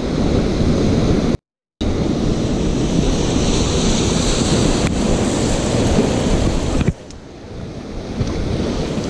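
Ocean surf washing and breaking over and around intertidal rocks, with wind buffeting the microphone. The sound cuts out completely for a moment about a second and a half in, and drops somewhat in level near the end.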